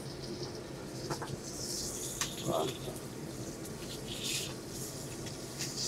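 Steady commercial-kitchen background at the gas range, with water in a stockpot under a steamer insert of squash slices. A low hum runs throughout, with a few light clicks of metal utensils and two short hisses.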